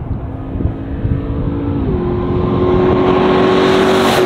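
The supercharged 6.2-litre V8 of a 2021 Ram TRX through a Corsa Extreme exhaust, accelerating hard. The pitch climbs, drops at an upshift about two seconds in, then climbs again as it grows louder.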